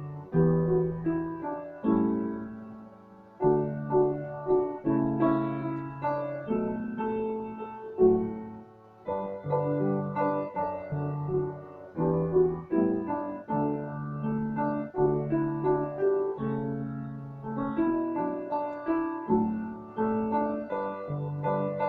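Piano playing a two-voice piece: a melody over lower bass notes, each note struck and fading away, in phrases.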